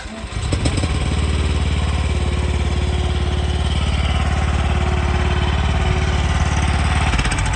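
Mini skid steer's small engine running loud and steady, coming up in the first second and dropping back near the end.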